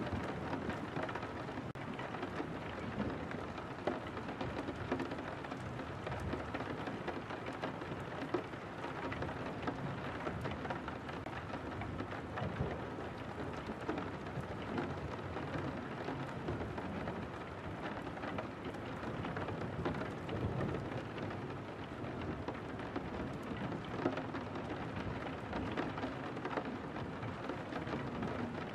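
Steady rain falling on a window: an even hiss of drops, with a few sharper drop hits standing out now and then.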